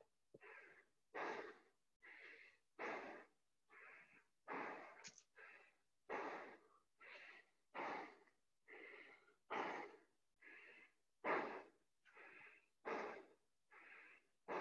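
Heavy, rhythmic breathing of a person getting their breath back after a set of burpees: a stronger breath about every second and a half, with a softer one between.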